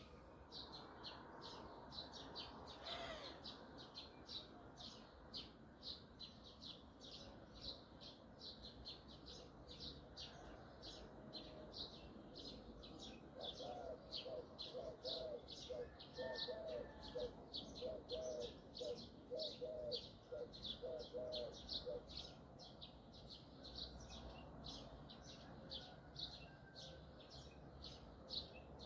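Birdsong: short high chirps repeated quickly, about three a second, without a break. From about halfway in, a lower call joins for several seconds as a run of short repeated notes.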